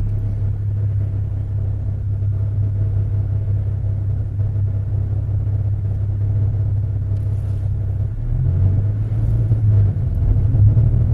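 In-cabin drone of a V6 Chevrolet Camaro being driven: a steady low engine and road rumble. The engine note changes and grows slightly louder about eight seconds in.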